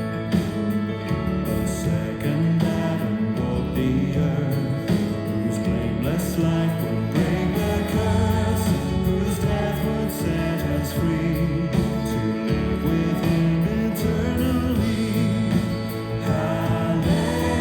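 A Christian worship song playing, with sung vocals over instrumental accompaniment.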